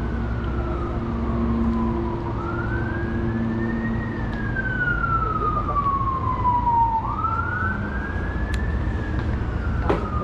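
Emergency vehicle siren wailing, a single tone rising slowly and falling more slowly, twice, over a low rumble. A sharp click near the end.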